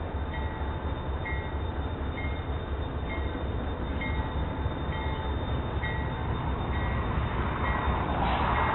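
Railroad grade-crossing bell ringing steadily, about one strike a second, over the low rumble of a train rolling past. The train noise grows louder near the end.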